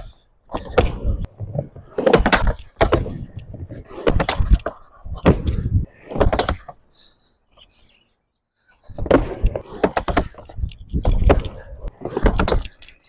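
Skateboard riding back and forth on a small plywood quarter pipe: the wheels rumble on the wood, with repeated knocks as the trucks and tail hit the ramp. It comes in bursts, with a short quiet break about eight seconds in.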